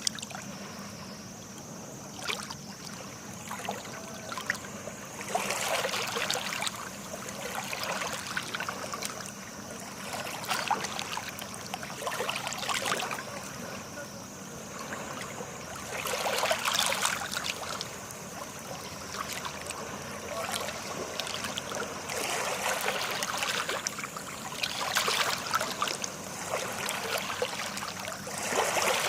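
Small sea waves washing and splashing in, each surge swelling and fading every four to six seconds.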